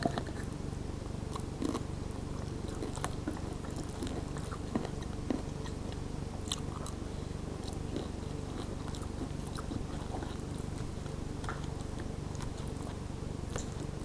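Soft, scattered clicks and smacks of someone chewing a mouthful of casserole, over a steady low hum.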